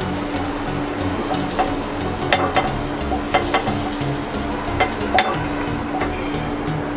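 Fried potato and onion pieces scraped from a hot nonstick frying pan into a glass bowl with a wooden spatula: a light sizzle, broken by several sharp clicks and knocks as the spatula, pan and bowl touch.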